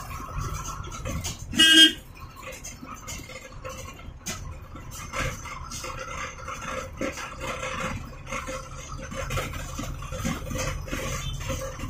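Diesel engine of an MSRTC Leyland bus running under the cab, with rattling from the cab fittings; about two seconds in, the bus's horn gives one short, loud blast.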